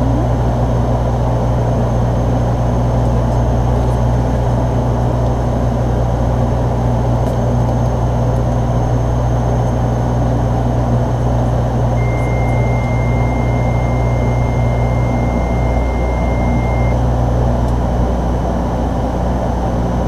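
Steady drone of a de Havilland Canada Dash 8-314's twin Pratt & Whitney Canada PW123 turboprop engines and propellers in flight, heard inside the aircraft. A steady high tone sounds for about five seconds from about twelve seconds in.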